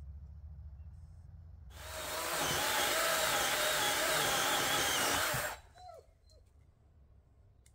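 Small electric chainsaw cutting into a dead branch: the motor and chain start about two seconds in, run with a wavering whine for about four seconds, and stop abruptly.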